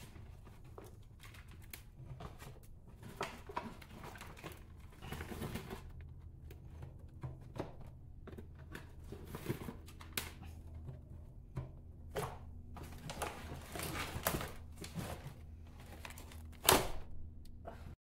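Handfuls of potting mix being scooped and pressed into black plastic seedling pots, a run of soft rustles and light plastic clicks, with a louder knock near the end. A faint steady low hum sets in about five seconds in.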